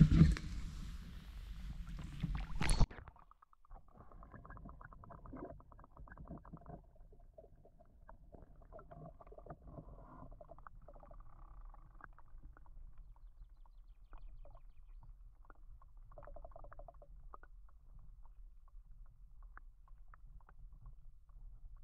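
Muffled underwater sound from a camera submerged in a shallow forest creek: a faint low rumble with scattered small clicks and ticks. The first few seconds are louder open-air sound with a couple of sharp knocks, cut off abruptly about three seconds in.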